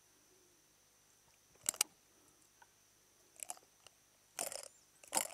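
Pliers working a lure's treble hooks out of a trairão's (aimara wolf fish's) mouth at the water's surface: a few short, sharp clicks and crunchy scrapes, with a brief splash as the fish stirs near the end.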